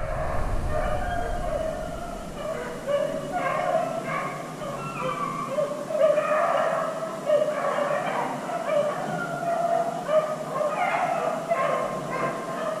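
A pack of beagles baying on a rabbit's trail, several dogs giving voice over one another without a break.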